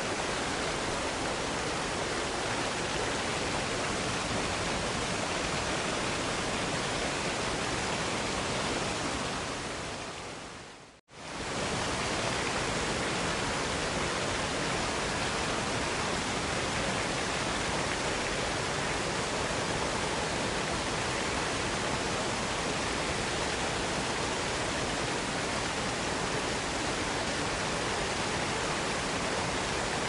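Steady, even rushing of a waterfall. About eleven seconds in it fades to a moment of silence and comes straight back.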